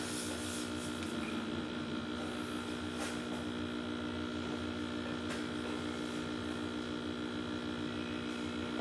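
Steady electrical hum and buzz coming through an old CRT television's speaker, switching on abruptly at the start and holding level, with no music or voice.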